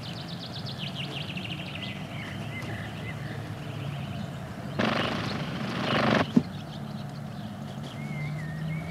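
Small birds chirping and twittering: a quick run of high chirps, then thin warbling notes. About halfway through, a loud rushing noise lasts a second and a half and cuts off with a click.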